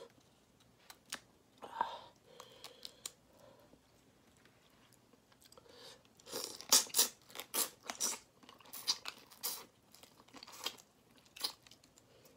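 Close-up mouth sounds of eating spicy shell-on crayfish: chewing, crunching and wet smacks. They come only now and then at first, then about halfway through turn into a quick run of sharp crunches and clicks.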